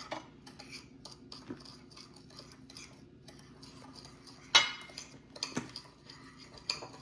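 A spoon stirring cinnamon into sugar in a bowl: light scraping with irregular clinks against the bowl, and one sharper clink about four and a half seconds in.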